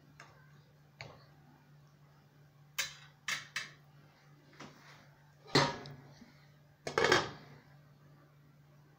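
Kitchen utensils knocking on an enamelled stock pot: a few light clicks, then three quick sharp taps, then two louder ringing clanks about a second and a half apart as a glass lid is put onto the pot. A low steady hum runs underneath.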